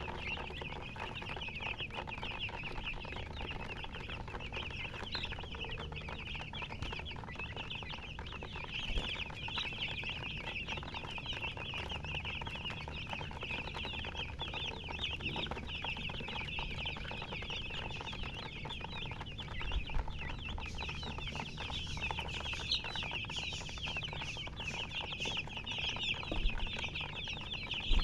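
A crowd of chicks peeping without pause, many short high chirps overlapping into a dense chorus. A few soft knocks sound now and then.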